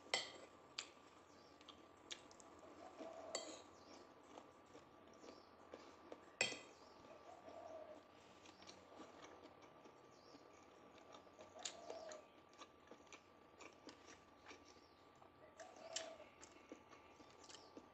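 Faint eating sounds: a spoon scraping and clicking against a plate of fried rice now and then, with quiet chewing, over a faint steady hum.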